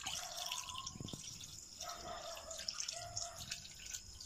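Vinegar being poured from a large plastic jug through a plastic funnel into a plastic jerrycan, running and splashing in several spells.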